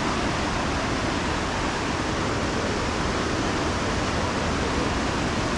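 Fast-flowing mountain river rushing over rocks: a steady, unbroken whitewater rush.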